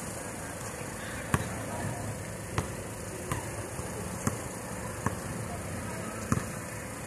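A basketball bouncing on an outdoor court: about six separate, sharp bounces at uneven intervals, the loudest a little over a second in.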